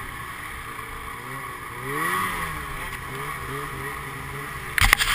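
Snowmobile engine running under way, its pitch rising and then falling about two seconds in, over a steady hiss. A cluster of sharp knocks comes near the end.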